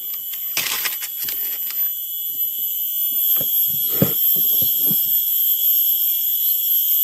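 Steady high-pitched drone of cicadas in tropical forest, several shrill tones held without a break. A few short knocks and rustles of handling sit over it.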